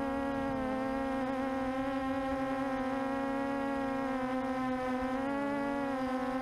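QAV400 quadcopter's motors and propellers buzzing steadily, heard from the onboard camera, the pitch dipping briefly about a second in and again near the end.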